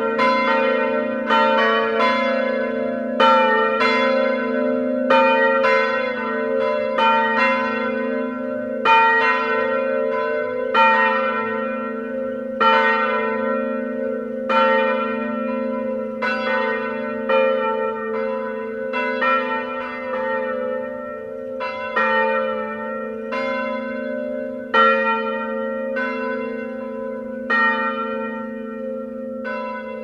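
Several church bells ringing together, struck in an uneven sequence about once a second, each stroke ringing on over the hum of the ones before. The sound grows gradually fainter over the last few seconds.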